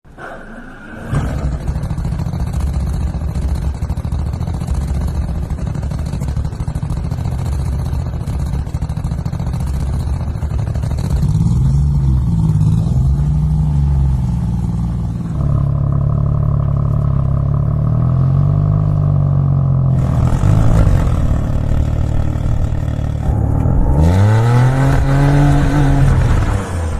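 Koenigsegg supercar engine running loudly and being revved, its pitch rising and falling in several blips, with the biggest rev near the end.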